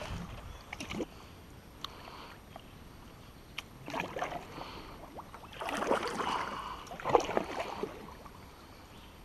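Kayak paddle strokes in slow river water: the blade dipping and pulling a few times, mostly in the second half, with water splashing and dripping off it. A few light clicks are heard in the first half.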